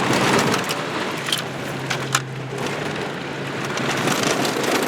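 Mazda's tyres crunching over a bumpy dirt road, heard from inside the cabin, with gravel pinging against the car and a sharp knock about two seconds in, over a low engine drone.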